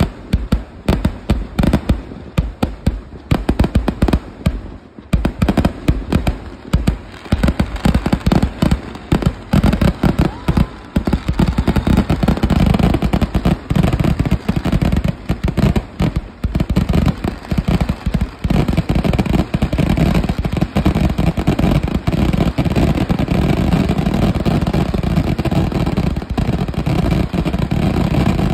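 Fireworks display fired from the ground: a rapid, ragged string of loud bangs and crackling bursts that crowds together about halfway through into a dense, almost unbroken barrage, heavier still in the last third.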